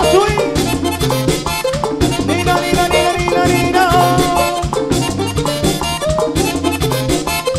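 Live Latin band music in an instrumental passage: a button accordion carries the melody over a steady drum and bass beat.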